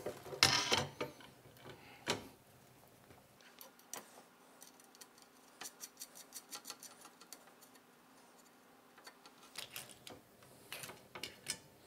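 Small metal parts (bolts, nuts, springs) being handled, giving scattered light clicks and ticks. There is a brief rustle about half a second in and a closer run of clicks near the end as a bolt is fitted to a corner of the heated bed.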